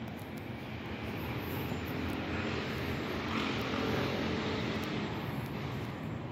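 A distant engine drone that swells to a peak about halfway through and eases off again, as of something passing by.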